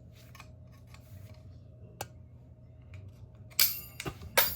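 Metal parts of a GU10 track light head being worked by hand: a few light clicks, a sharp tick about two seconds in, then two loud metallic clatters near the end as the retaining ring is pried off.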